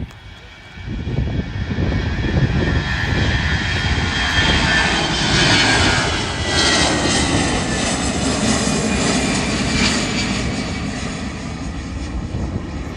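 easyJet Airbus A320-family jet passing close by, its engine noise swelling to a peak about five to six seconds in, with a high whine that slowly falls in pitch as it goes past, then easing off.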